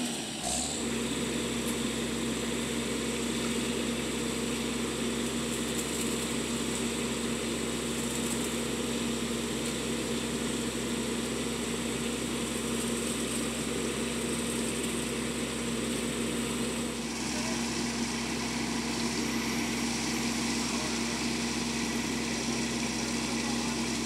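Concrete mixer truck's diesel engine running steadily, with a constant hum, while its drum turns to discharge concrete down the chute. The higher part of the sound shifts slightly about two-thirds of the way through.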